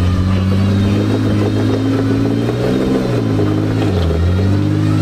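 A motor running under load, its pitch wavering, then dipping low about four seconds in and rising again.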